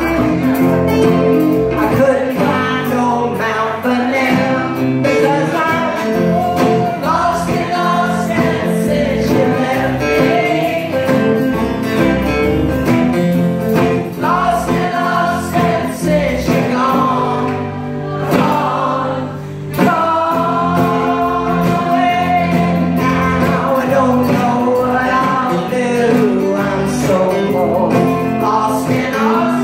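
A group of singers singing together in chorus, accompanied by acoustic guitars, performed live. The sound dips briefly about two-thirds of the way through, then the singing picks up again.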